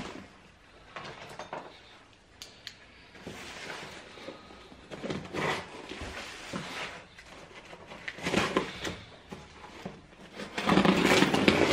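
A taped cardboard shipping box being opened by hand: irregular scraping, rustling and small knocks of cardboard and packing, growing louder near the end.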